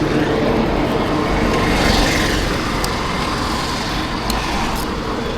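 Steady road and traffic noise with wind rumbling on the microphone, the faint hum of a running engine under it, and a few light clicks.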